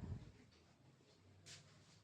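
Near silence: room tone with a faint low hum, a soft low thump at the start and a brief faint hiss about one and a half seconds in.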